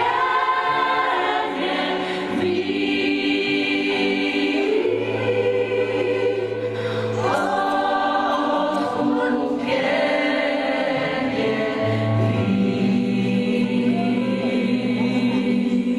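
Gospel choir singing long, sustained chords with keyboard accompaniment.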